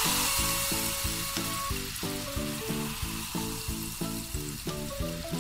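Fizzing, crackling hiss of foam from hydrogen peroxide breaking down with yeast and soap, pushing up out of a glass bottle; the hiss fades slowly. Light background music with short, evenly spaced notes plays underneath.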